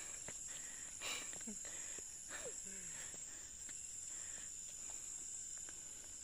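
Steady high-pitched chorus of insects, with a few faint ticks and a couple of faint falling glides.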